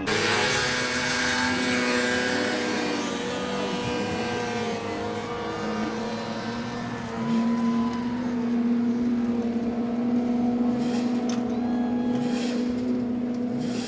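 Several snowmobile engines running at high revs at once, their pitches rising and falling over one another, with one engine holding a steady drone through the second half.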